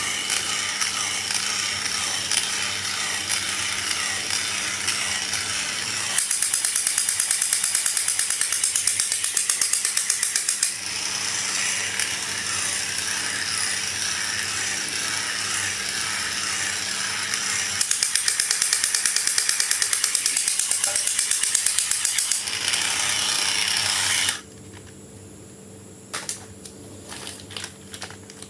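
Rapid mechanical clicking like a ratchet, louder in two stretches, dropping to a few scattered clicks near the end.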